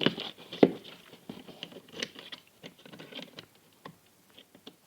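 Irregular small clicks and knocks, the loudest about half a second in, from the parts of a twin-tub washing machine's spin dryer being handled.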